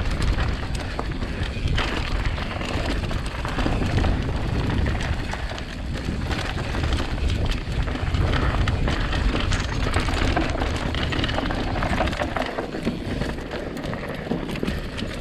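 Mountain bike riding fast down a dirt bike-park trail: a steady low rumble of tyres and rushing air, with constant short clicks and knocks as the bike rattles over rough ground.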